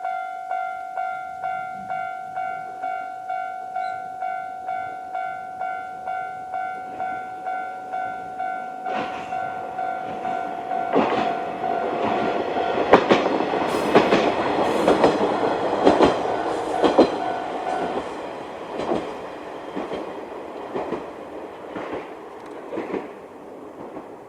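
Railway level-crossing electronic warning bell ringing in a steady beat of about two strokes a second. A KiHa 20-type diesel railcar then comes through, its wheels clacking loudly over the rail joints. The bell stops about two-thirds of the way in, and the railcar's sound fades away.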